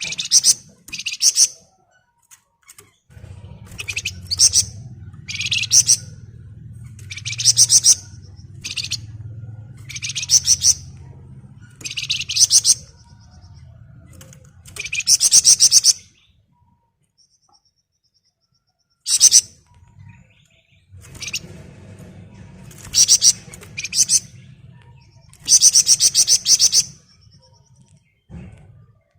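Javan fulvetta (Wergan Jawa, 'flamboyan') singing its dense, rapid rattling trill in about a dozen short bursts, with a low steady hum behind parts of it.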